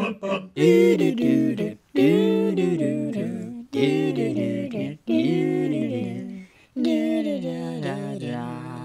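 A man's voice humming a short tune without accompaniment, in about six phrases of held and sliding notes, fading out at the end.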